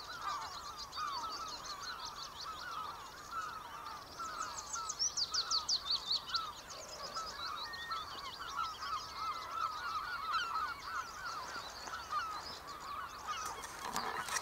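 Outdoor bird chorus: a dense, unbroken stream of short calls in a middle pitch, with scratchy high song phrases above it. About four seconds in comes a loud run of quick descending high notes. A brief rustle of handling noise comes at the very end.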